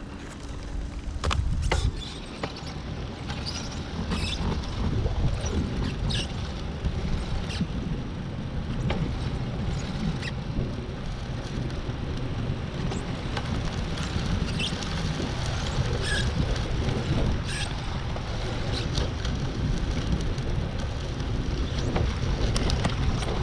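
Wind rumbling on the microphone at the beach, with scattered faint clicks through it.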